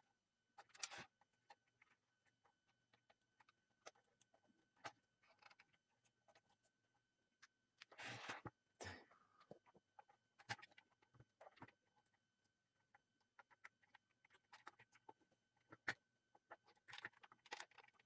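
Faint, scattered clicks and rustles of hands handling a Zebra GK420d printer's plastic chassis and flat ribbon cable during disassembly. There is a longer rustle about halfway through and a sharp click shortly before the end.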